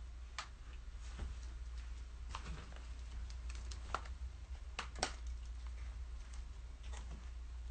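Scattered light clicks and taps of a laptop being handled and lifted off a table, over a low steady hum.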